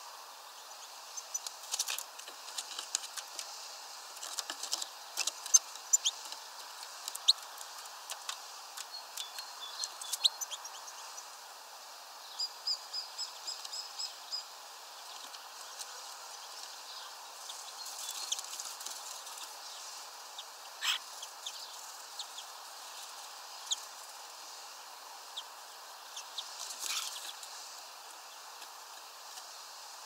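Birds chirping, with scattered sharp clicks and short high calls, and a quick run of about eight evenly spaced high notes around 13 seconds in.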